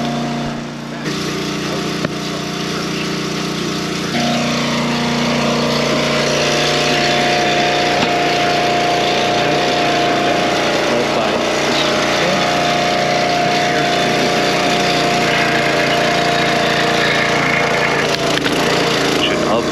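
Dirty Hand Tools 25-ton log splitter's 6.5 hp Kohler engine running steadily, its note changing about four seconds in, with wood creaking and splitting as the wedge drives through a log.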